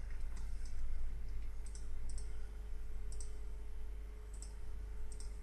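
Computer mouse clicking: scattered sharp clicks, some in quick pairs, over a steady low hum.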